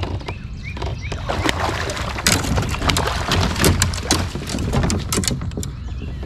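A run of sharp clatters, knocks and splashes at the side of a kayak while a hooked bass is fought to the boat and a landing net is pulled out from among the rods, over a steady rumble of wind on the microphone.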